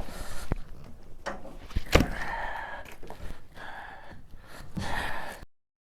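A person's breathing close to the microphone, a breath about every second and a half, with a few sharp clicks and knocks of handling; it cuts off suddenly near the end.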